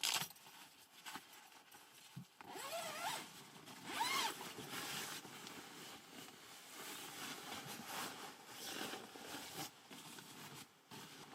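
A zipper being pulled open or shut in several strokes, the longest with a rising zip about two and four seconds in.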